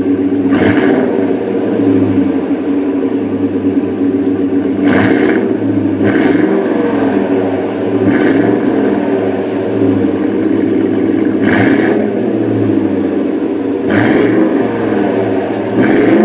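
Ford Raptor pickup with a Corsa Xtreme exhaust idling steadily through its twin tips, with a few short throttle blips that briefly lift and drop the pitch.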